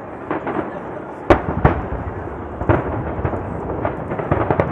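Aerial fireworks shells bursting in quick succession: a string of sharp booms with crackling between, the loudest about a second in, and a faster run of bangs near the end.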